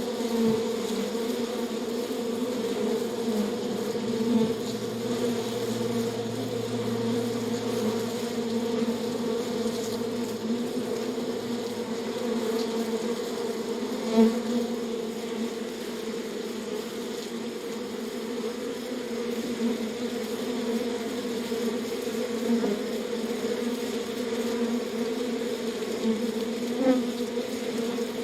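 Bees in a beehive: a steady, dense hum of many wings on a low pitch and its overtone. Single bees pass close now and then in brief louder buzzes, the loudest about fourteen seconds in.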